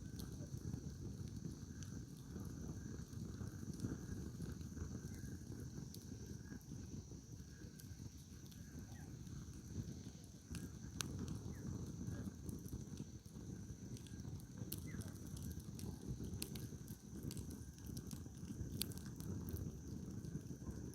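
Firewood campfire burning, with sharp crackles and pops scattered through, more of them in the second half, over a steady low rushing noise.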